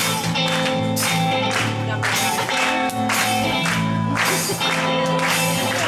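Live funk band playing a groove: electric guitars and a low bass line repeat a short riff over a steady beat of about two sharp hits a second, with the audience clapping along.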